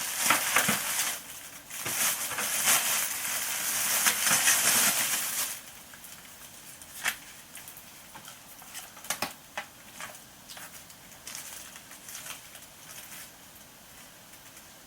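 Rustling and crinkling of packaging for the first five seconds or so, then quieter handling with a few light metallic clicks and clinks as the folding steel BBQ grill's parts are handled.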